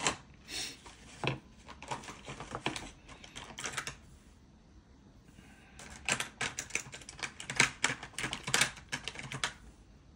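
Quick runs of light clicks and taps from the dashcam's plastic housing being handled. They come in two bunches with a quieter gap of about two seconds in the middle.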